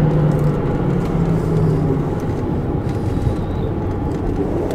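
Cabin noise of a Mercedes E-Class W211 diesel driving: road and tyre rumble with a steady droning hum that dies away about two seconds in. The occupants blame this rear noise on the differential, which they suspect is low on oil.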